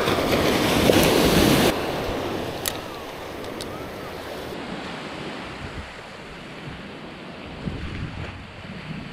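Surf washing up on the beach, with wind buffeting the microphone. A louder rush of noise over the first second and a half stops abruptly, leaving a steadier wash of waves.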